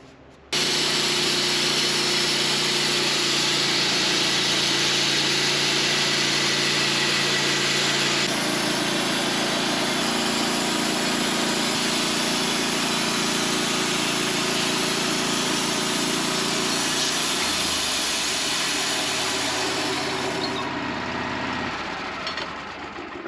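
Sawmill running and its blade cutting through a small maple log, taking a half-inch board off the side. The sound starts suddenly about half a second in, holds steady, and eases off near the end.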